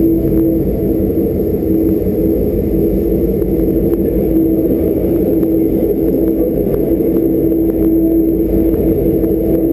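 Diesel locomotive engine running steadily under way during yard shunting, a loud low drone with a steady hum and a few faint ticks.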